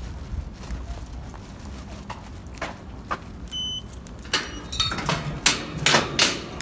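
A low steady rumble, then a short electronic beep about three and a half seconds in, followed by a quick series of clicks and knocks near the end.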